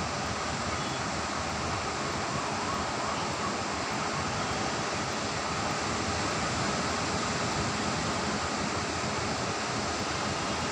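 Sea surf washing on a beach: a continuous rushing noise that swells slightly about halfway through.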